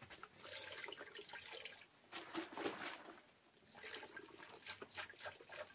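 Juice trickling and dripping through small holes punched in a plastic jar lid into an aluminium pot, faint, in two spells with a short lull between.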